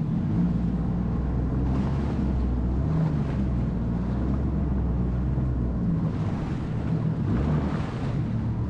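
Jet ski engine running with a steady low rumble, mixed with water sloshing and wind buffeting the microphone.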